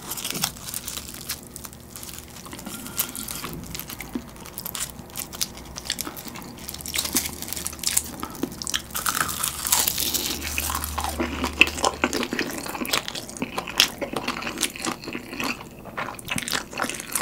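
Close-miked eating: crisp roasted laver (gim) crackling as it is folded around noodles and bitten, with irregular crunching and wet chewing of the stir-fried ramen noodles.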